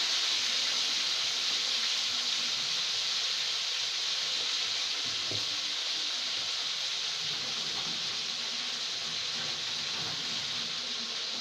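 Steady hiss of a pot of soup boiling on the stove, slowly fading, with a few faint knocks about five, eight and ten seconds in.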